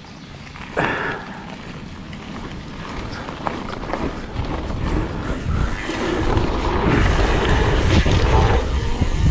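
Wind buffeting the camera microphone over tyre and trail rumble from a mountain bike descending a downhill trail, with scattered small knocks. It grows steadily louder as the bike picks up speed.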